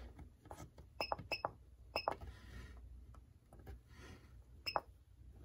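Buttons on a Herpstat reptile thermostat being pressed: a few faint sharp clicks, in quick runs about one and two seconds in and once more near the end.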